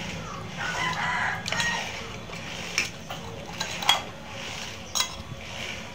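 Metal spoons clinking and scraping against ceramic soup bowls during a meal, a handful of sharp clinks spread about a second apart.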